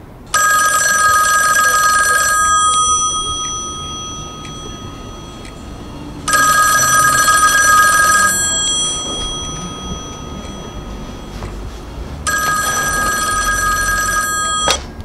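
Telephone ringing three times, each ring about two seconds long and about six seconds apart, with its tone lingering after each ring. The third ring cuts off suddenly with a click as the phone is picked up.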